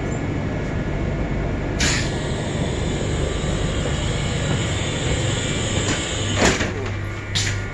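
Train doors closing at a station stop on a Trenitalia regional train: a sharp clunk about two seconds in opens a high steady sound lasting some four seconds, ended by a second clunk, with one more clunk near the end, over the steady hum of the carriage.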